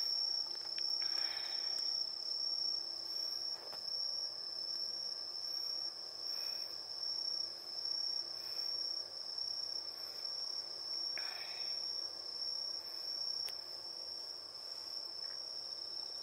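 Crickets chirring in one continuous, steady high trill, with a couple of brief soft rustles about a second in and around eleven seconds.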